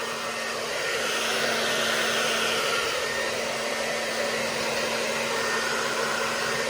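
Handheld hair dryer running steadily, blowing on a capuchin monkey's fur, with a steady hum under the rush of air that swells slightly for a couple of seconds about a second in.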